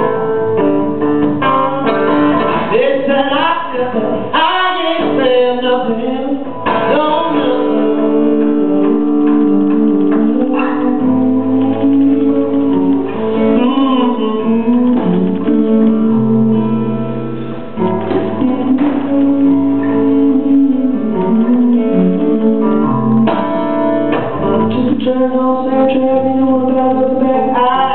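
A man singing live with his own acoustic guitar accompaniment, a steady song with sustained sung notes over strummed chords.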